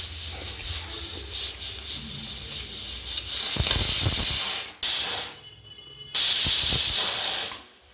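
Stovetop pressure cooker hissing as steam escapes past its weight valve, in whistle bursts that come on suddenly and loudly about three and a half seconds in and again about six seconds in: the cooker has come up to pressure and is whistling.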